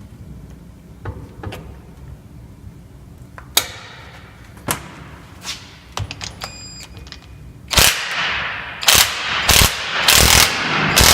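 Light metal clicks and taps from fitting a power-steering rack's rotary valve body into its housing, then from about eight seconds in a run of five or six loud, short rattling bursts, each ringing out.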